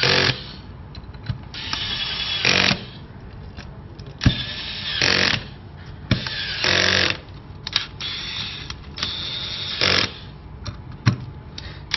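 Handheld electric screwdriver driving screws into an aluminium frame, running in several short bursts of about a second each with sharp clicks between them.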